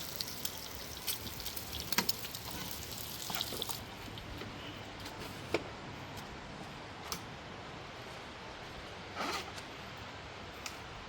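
Water splashing and trickling, with scattered small sharp splashes and a short louder splash about nine seconds in.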